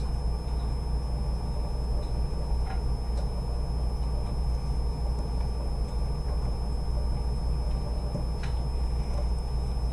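Steady low hum and rumble of background room noise, with a couple of faint ticks.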